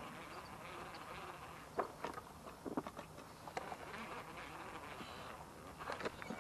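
Insects buzzing steadily, with scattered faint clicks and taps from about two seconds in.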